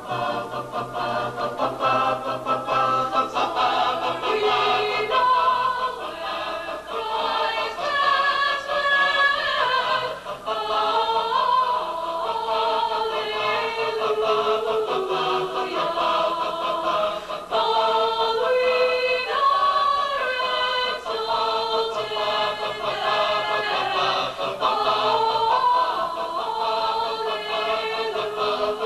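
Choir singing in several parts, with long held notes moving from chord to chord.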